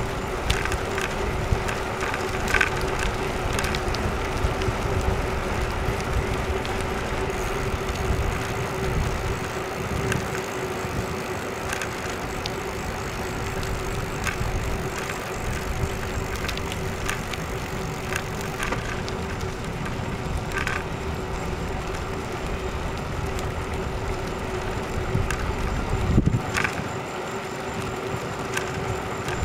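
Bicycle riding along a paved street, heard close to the bike: steady rolling noise with a steady hum and scattered clicks and rattles, the loudest of them near the end.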